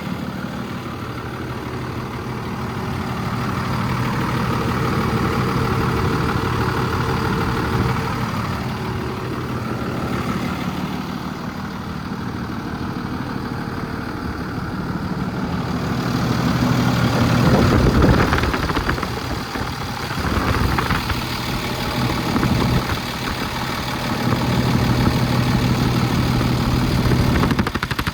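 Cummins ISB 6.7-litre inline-six turbo diesel of a Freightliner M2 truck running at low speed, its sound swelling and easing several times.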